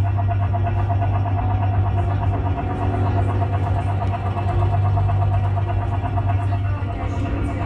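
A steady, loud low hum with a rapidly pulsing tone above it: the attraction's drone as riders sit in the link chairs waiting for the flight simulator to start.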